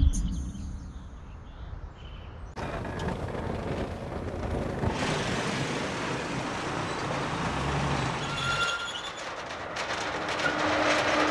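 Truck engine and road noise, starting suddenly about two and a half seconds in and growing louder about five seconds in.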